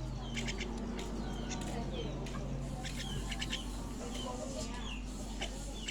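Young starlings giving a run of short, sharp, high-pitched calls, several a second, over a steady low hum.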